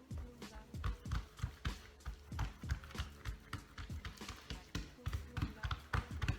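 Hands patting and slapping soft meloui dough against a worktop: a quick, somewhat irregular run of soft thumps, about three or four a second.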